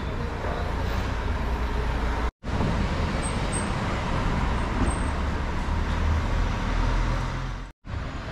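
City street traffic: a steady noise of passing cars and engines with a heavy low rumble. It drops out completely for an instant twice, where the footage is cut.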